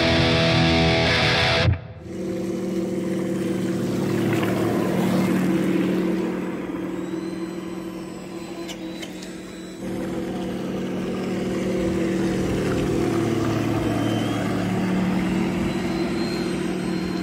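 A loud rock music sting that cuts off about two seconds in, then the steady hum of a large radio-controlled model torpedo boat running on brushless electric motors, over the wash of water. The hum drops away a few seconds later and comes back strongly about ten seconds in.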